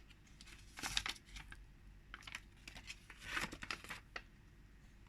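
Paper and plastic packaging crinkling as it is handled, in two short rustling bursts, about a second in and again in the middle, with a few light clicks between.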